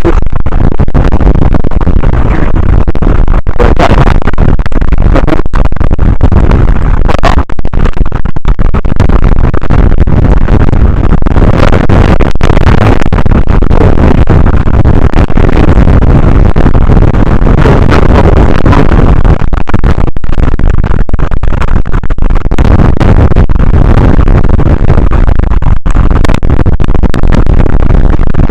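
Strong wind blasting straight onto the microphone: a loud, distorted rumbling roar that runs on without a break.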